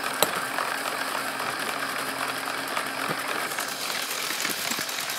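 Lego car wash running: small electric motors and plastic gears driving the spinning brushes and conveyor give a steady whirring hum. A single sharp click comes just after the start.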